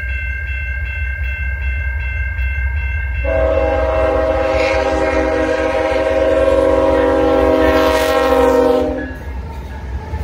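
A CN freight train's lead locomotive, a GE AC44C6M, sounds one long horn blast of about six seconds as it draws up and passes, starting about three seconds in. A grade-crossing bell rings before the horn. The diesels rumble low underneath throughout.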